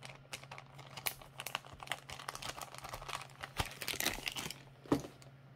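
Plastic zip-top bags of wax melts crinkling and rustling as they are handled, in irregular small crackles, over a faint steady hum.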